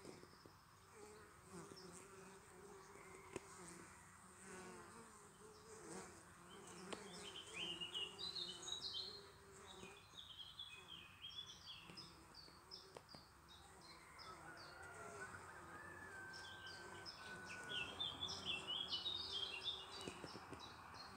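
Honeybee foragers flying in and out of a log hive's entrance, a faint steady buzzing hum. Small birds chirp in the background, most about a third of the way in and again near the end.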